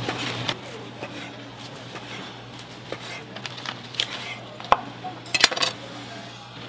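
Kitchen utensils and dishes clinking and knocking now and then, with a cluster of sharp clinks, the loudest, about five and a half seconds in, over a steady low hum.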